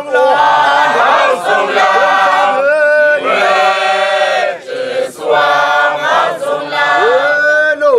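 Shangaan traditional choral singing: a group of voices chanting together unaccompanied in sustained phrases, with a brief break about halfway through.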